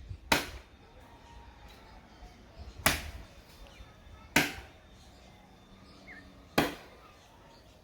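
Chopping strokes of a hand-swung blade into a hard tree trunk: four sharp chops, spaced about one and a half to two and a half seconds apart.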